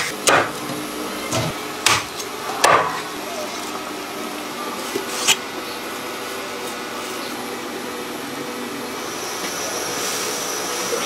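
A few separate sharp knocks of a cleaver chopping through boiled chicken on a wooden chopping board, over a steady background hum.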